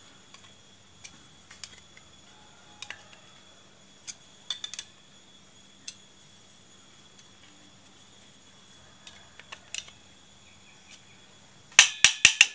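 Light metallic clicks and taps from hand tools and the metal parts of a scooter's centrifugal clutch being handled and fitted. The clicks come singly every second or so, then a quick run of several louder, sharp metal clacks near the end.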